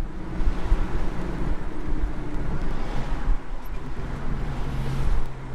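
Vehicle on the move: low road and engine rumble with wind buffeting the microphone. A steady engine hum rises out of the rumble near the end.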